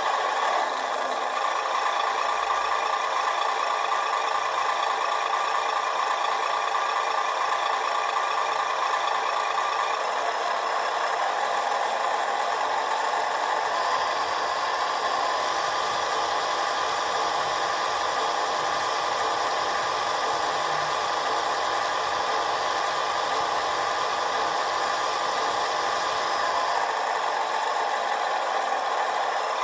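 Electronic engine-sound module in a model Ural forestry truck playing a simulated truck engine idling steadily, with a rattling, knocking tone. It comes through a small speaker, thin and with almost no deep bass. The tone shifts slightly about halfway through and again near the end.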